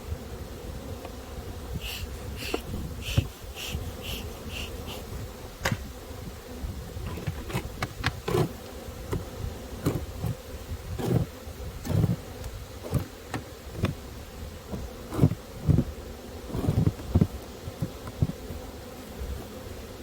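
Honeybees buzzing around an open hive, a steady hum. A short high note repeats about seven times a couple of seconds in, and irregular sharp knocks and clunks come through the middle and latter part.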